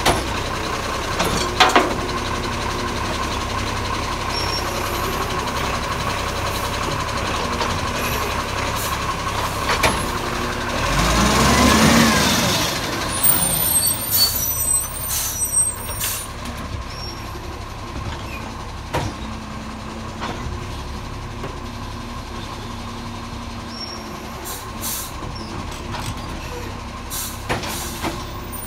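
International ACCO side-loader garbage truck running while its arm lifts and empties a wheelie bin. A loud hiss about halfway through, followed by clanks, then the truck pulls away and its engine fades.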